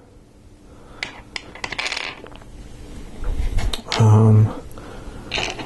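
Small plastic LEGO Technic pieces clicking and rattling against each other as hands pick through loose parts, in a few short bursts.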